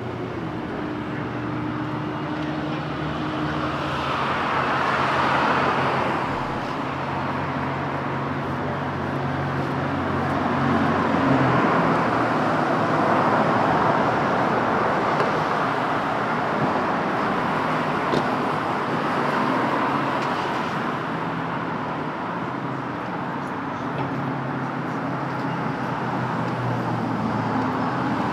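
Street traffic: cars passing one after another, the tyre and engine noise swelling and fading several times, over a steady low engine hum.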